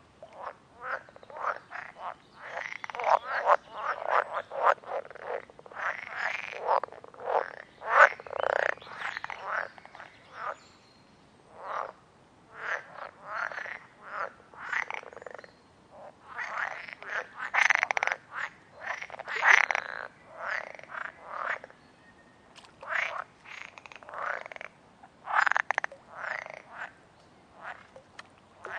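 A chorus of frogs croaking: many short, rapid calls overlapping in bouts, with brief lulls between them.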